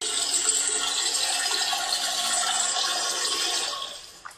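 Toilet flushing: a rush of water that runs steadily for nearly four seconds, then dies away near the end.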